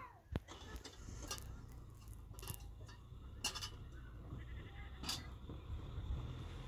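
Short animal calls, several in a row about a second apart, over a steady low rumble.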